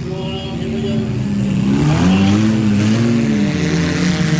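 Demolition derby cars' engines revving over a steady noisy din, the pitch rising about a second and a half in and falling again toward the end.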